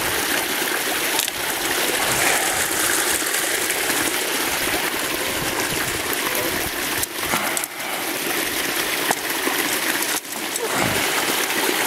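Steady rush and splash of water at an opening in the ice, as a beaver caught in a conibear trap is handled in the water.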